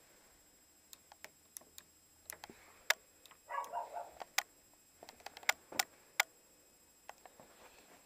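Quiet, scattered sharp clicks and taps, the handling noise of a handheld camera moving about, with a short pitched sound lasting under a second about three and a half seconds in.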